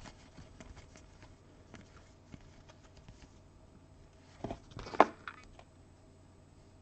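Trading cards being handled and flipped through by hand: faint rustling and sliding of card stock, with a short, louder card sound about five seconds in.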